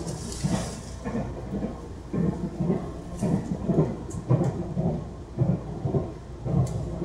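Running sound inside a TRA Puyuma Express (TEMU2000 tilting electric multiple unit) passenger car on the move: a steady low rumble from wheels and track that pulses unevenly about twice a second, with a few faint ticks.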